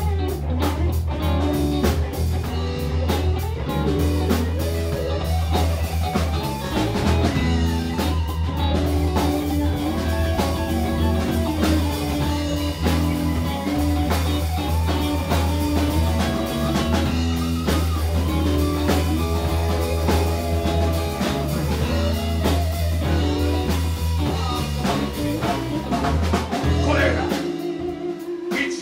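Live rock band playing an instrumental passage: electric guitars over bass guitar and a drum kit. About two seconds before the end the bass and drums briefly drop away, leaving a held guitar note.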